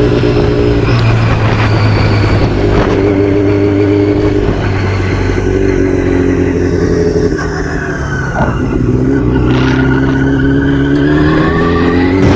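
Yamaha R6's 600 cc inline-four engine revving under a riding sportbike, rising and falling several times as the throttle and gears change through curves. It eases off briefly about two-thirds of the way through, then pulls up again.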